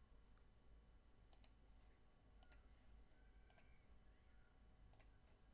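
Near silence with four faint computer mouse clicks, each a quick press-and-release pair, about a second apart.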